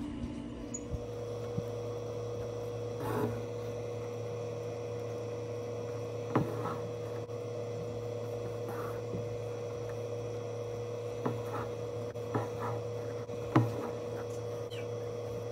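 Steady electrical hum with a few light taps and soft rubbing sounds scattered through it, the kind made by handling something close to the microphone.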